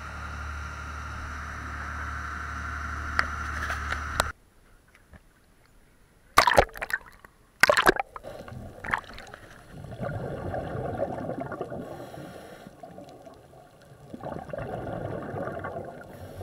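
A dive boat's engine drones steadily, then cuts off suddenly about four seconds in as the sound turns underwater. Underwater, two sharp bursts are followed by two long spells of gurgling exhaled bubbles from a scuba regulator.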